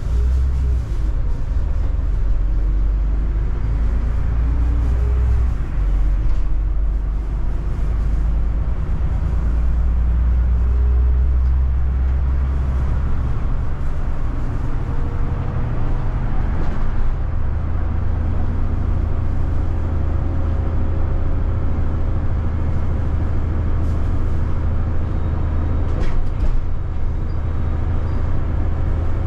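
City bus heard from inside the cabin: a deep, steady rumble with a whine that rises and falls as the bus speeds up and slows, then settles to a steadier whine later on. A single sharp click comes near the end.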